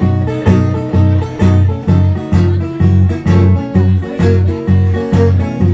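Live acoustic guitar playing an instrumental country-blues passage, a strong bass note thumped about twice a second under picked higher notes.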